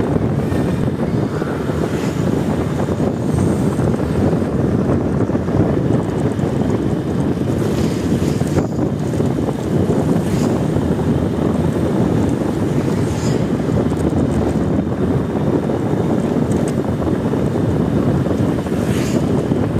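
Steady, loud wind rumble on the microphone while travelling, mixed with the running noise of the vehicle carrying it.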